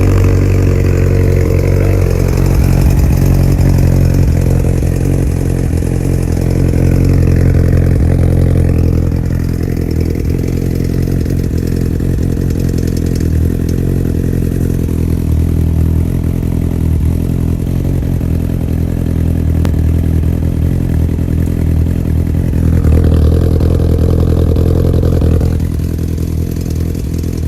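2002 Yamaha R1 inline-four engine idling steadily, its note lifting slightly a couple of times, in a clip about a ticking sound that the owner traces to the EXUP exhaust valve.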